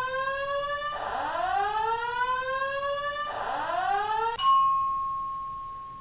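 Building fire alarm sounding a repeating whoop: rising sweeps of about two seconds each. It cuts off about four seconds in. A single bell-like ding follows and fades away.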